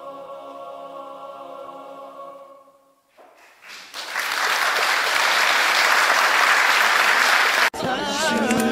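Mixed chamber choir holding a final chord that dies away about three seconds in, then, after a moment of quiet, an audience applauding. Near the end the applause cuts off abruptly to a group of people's voices.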